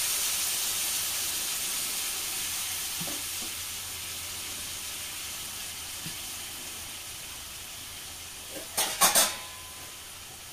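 Spiced potato pieces sizzling in a non-stick frying pan just after a few spoons of water were added, a steady hiss that slowly dies down. A brief clatter of knocks on the pan about nine seconds in.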